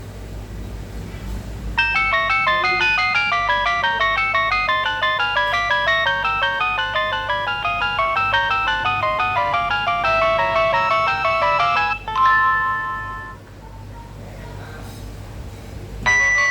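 Nokia 2760 phone speaker playing a polyphonic Nokia 7210 ringtone: a fast run of bright synthesized notes starts about two seconds in and ends about twelve seconds in on a short held chord. Near the end the next ringtone begins.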